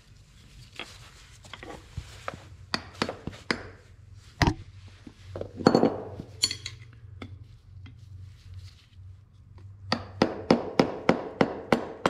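Hammer tapping a steel rod set against the inner dust shield of a tractor front wheel hub, working the shield loose so the inner bearing can come out. First come scattered knocks and metal clinks with one harder strike, then from about ten seconds in a quick even run of taps, about four a second.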